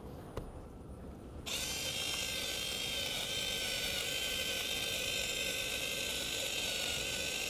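Battery-powered FinaMill spice grinder switching on about a second and a half in and running steadily with a high whine, grinding a chunky steak rub into a fine powder.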